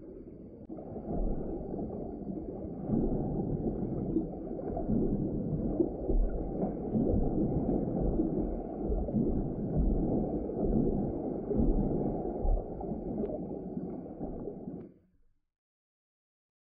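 Muffled, rumbling water noise from a camera in an underwater housing, surging and sloshing unevenly. It cuts off suddenly about 15 seconds in.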